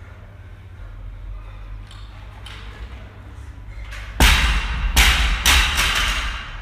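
Loaded barbell dropped onto a rubber gym floor: a heavy thud about four seconds in, then two more impacts as it bounces, with the bar and plates rattling before it settles.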